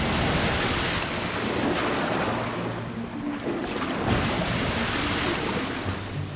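Rushing, splashing sea water as a Bryde's whale breaks the surface and feeds, with a louder rush about four seconds in as it blows.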